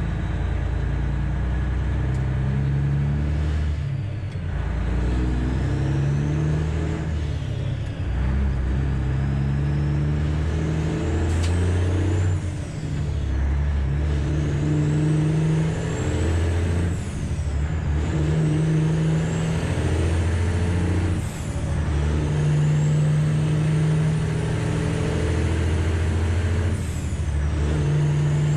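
Freightliner Classic XL diesel with straight pipes running hard under load, its deep exhaust note dropping off briefly about every four to five seconds as it changes up through the gears. A high whistle rises and falls with each gear.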